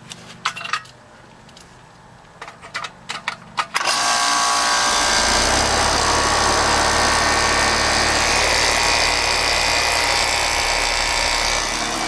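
A few clicks, then about four seconds in a Rheem 4-ton heat pump outdoor unit starts up with a sudden loud rush and keeps running steadily, with a low compressor hum under the noise of the condenser fan. The compressor is starting with a hard-start kit fitted.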